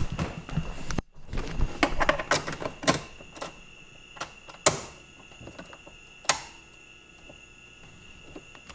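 Car key and ignition being handled: a flurry of small clicks and rattles, then two sharp clicks about a second and a half apart. No engine cranking follows.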